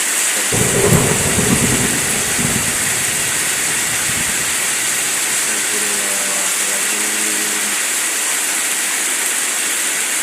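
Heavy rain with wind, a steady hiss throughout, with a low rumble about a second in and a faint pitched sound around six to seven seconds in.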